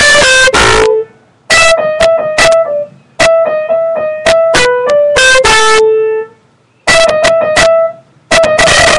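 Piano played in short phrases of quick notes, stopping briefly between them. A similar melody comes round several times, with a lower held note closing some phrases. It is recorded very loud.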